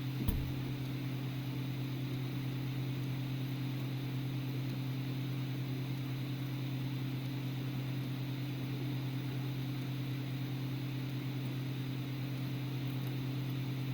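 A steady low mechanical hum with some hiss, and a single sharp knock a moment in.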